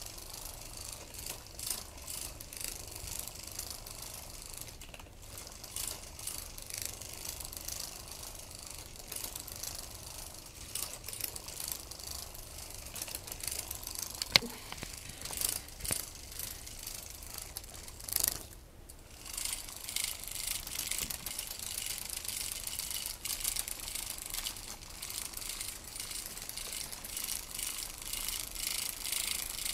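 Small motor and plastic gears of a battery-powered moving butterfly cat toy running with a fast, continuous clicking rattle. One sharp click comes about halfway through. The clicking stops briefly about two-thirds of the way in, then starts again.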